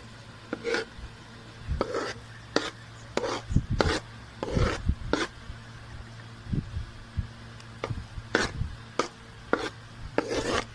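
Metal ladle scraping and knocking against a metal kadai in irregular strokes as crumbled khoya is stirred and pressed while it warms and melts.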